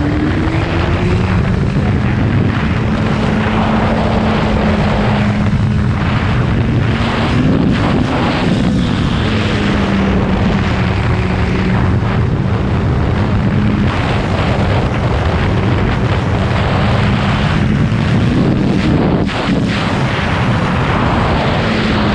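Kawasaki ZX-14R inline-four engine running at a steady cruise under heavy wind rush. The engine pitch climbs about a second in, swells briefly around eight seconds, and drops near the end as the bike slows.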